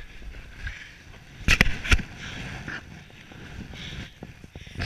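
Dog sled runners hissing and scraping over snow, with two sharp knocks about a second and a half and two seconds in as the sled tips over in a fall.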